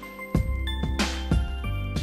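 Background music with a steady beat: sharp drum hits over deep held bass notes and sustained melody notes.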